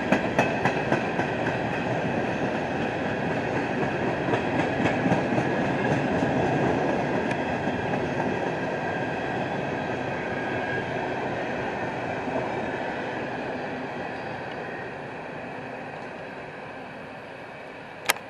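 Empty coal cars of a freight train rolling past, their wheels clicking over rail joints in the first several seconds over a steady rumble that fades away as the end of the train passes. A single sharp click near the end.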